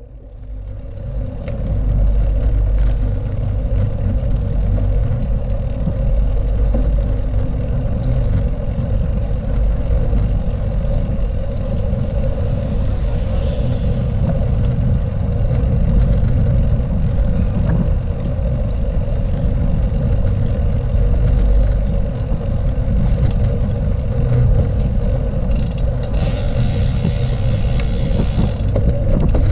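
Steady wind buffeting on the microphone mixed with the low rumble of wheels rolling on asphalt while moving along a paved path. It builds up over the first second or so.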